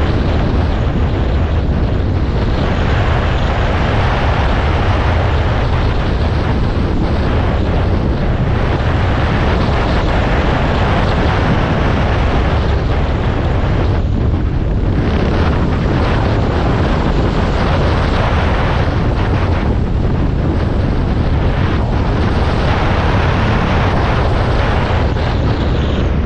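Enduro motorcycle riding steadily along a gravel road: the engine and tyre noise sit under heavy wind rush on the microphone.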